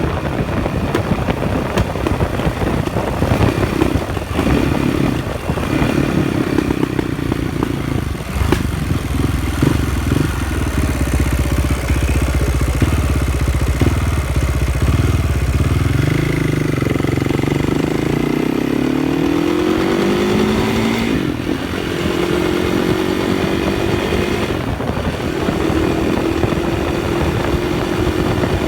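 KTM 560 SMR's single-cylinder four-stroke engine running under way, rough and irregular at first, then rising in pitch several times as it accelerates. The owner reports a juddery noise on acceleration, the bike no longer pulling smooth and hard.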